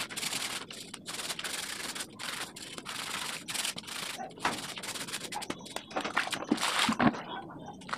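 A hand scrub brush scrubbed back and forth over wet, soapy rubber sandals: quick rough strokes, about three a second, stopping near the end.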